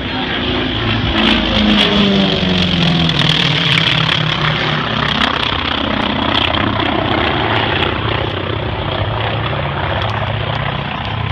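Propeller engines of two single-engine aerobatic planes flying by in formation. They make a loud drone whose pitch falls over the first few seconds as they pass, then settles into a steady drone.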